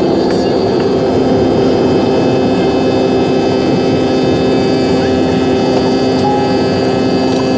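Airliner cabin noise: a loud, steady rush of jet engines and airflow with a few steady humming tones, unchanging throughout.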